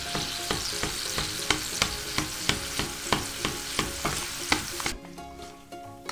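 Eggs frying in soy-and-chili sauce in an enamelled wok, sizzling steadily while a wooden spatula stirs and bastes, knocking against the pan about three times a second. The sizzle cuts off abruptly about five seconds in, leaving soft background music.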